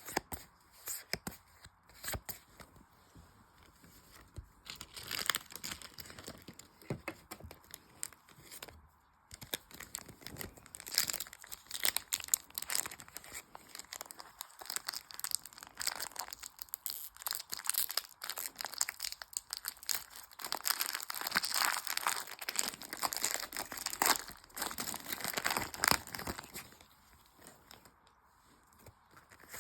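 Pokémon card booster pack wrappers being torn open and crinkled by hand, a run of crackly tearing and rustling that is busiest from about five seconds in until shortly before the end.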